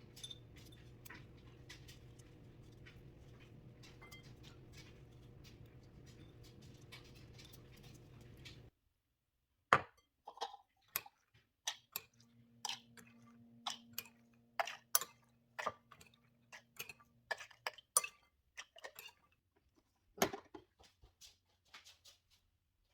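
A faint steady low hum with light clicks that cuts off suddenly about nine seconds in, followed by scattered clinks and knocks of dishes and utensils being handled in a kitchen.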